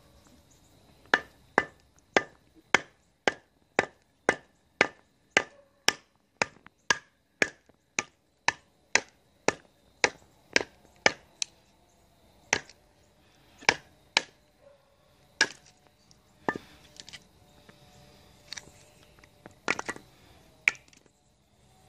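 Sharp wooden knocks as a short piece of wood is split with a Mora Black knife, its blade driven down through the stick. The knocks come steadily about two a second for some ten seconds, then more slowly and irregularly.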